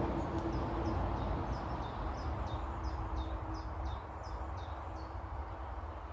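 A small bird singing a run of short, high, downward-slurred notes repeated about three times a second, stopping about a second before the end, over a steady low outdoor rumble.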